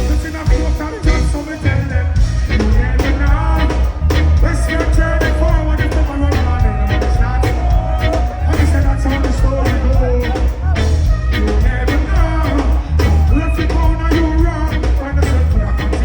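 Live dancehall music played loud over a festival sound system: a heavy, pulsing bass beat with a man's voice singing over it.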